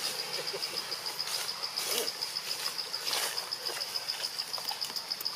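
An insect trilling steadily at a high pitch in a fast, even pulse, with a few faint short calls in the background.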